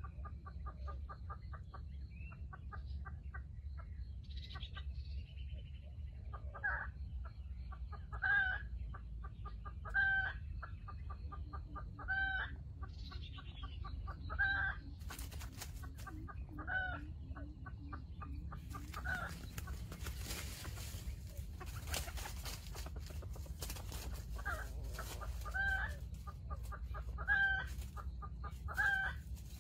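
Wild chickens clucking: loud sharp calls every second or two over runs of quick, softer clucks.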